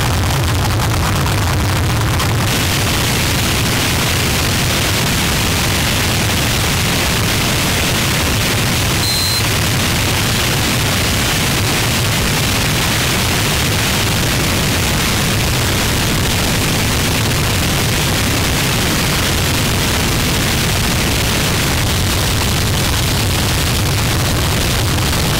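Harsh noise music: a dense, heavily distorted wall of hiss and rumble at a constant, very loud level. It thickens in the upper range about two seconds in, and a short high tone cuts through about nine seconds in.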